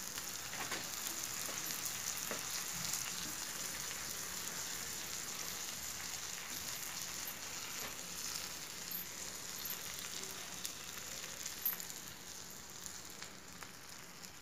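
Butter sizzling under pav buns toasting on a hot tawa griddle: a steady crackling sizzle that slowly fades toward the end.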